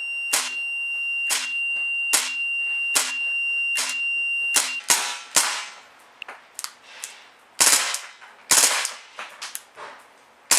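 KWA M93R gas blowback airsoft pistol firing: a string of single shots about a second apart, a steady high tone sounding behind the first several, then near the end two short bursts of rapid shots as it is switched through its fire modes.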